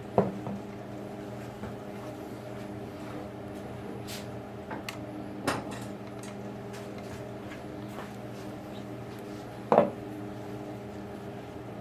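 A few sharp metal clinks and knocks of small lathe parts being picked up and handled, the loudest about five and a half and ten seconds in, over a steady low hum.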